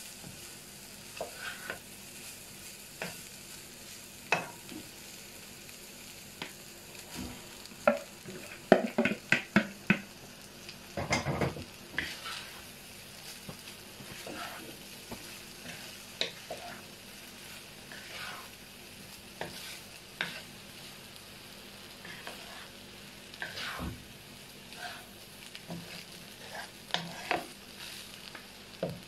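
Chicken fried rice being stirred and turned with a spatula in a large pan: a steady low sizzle under scattered knocks and scrapes of the spatula against the pan. A quick run of louder knocks and a scrape comes about nine to twelve seconds in.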